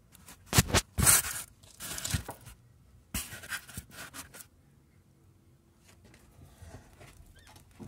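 Front anti-roll bar of a Lada Priora rocked by hand in its freshly greased polyurethane bushings: a run of scraping, knocking bursts over the first four seconds, loudest about a second in, with no squeak, showing the grease has cured the bushing squeak.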